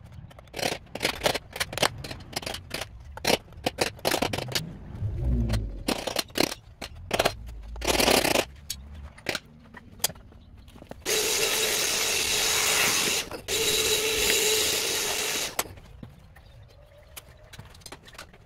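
Metal hand tools clicking, knocking and scraping against the battery pack's aluminium cooling plates in quick, irregular strokes. Later a power tool runs steadily for about four seconds, with a brief break in the middle.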